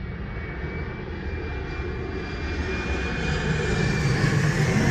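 Twin-engine jet airliner on approach with its landing gear down, its engines growing steadily louder as it comes in low overhead: a deep rumble and rushing noise with a thin high whine on top.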